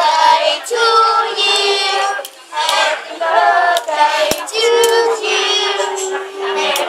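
Children and a woman singing a birthday song together in long held notes, with a few scattered hand claps.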